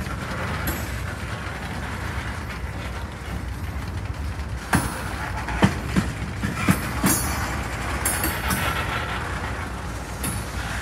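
Freight train of boxcars and tank cars rolling past: a steady rumble of steel wheels on rail, with a run of sharp clacks about halfway through as the wheels cross rail joints.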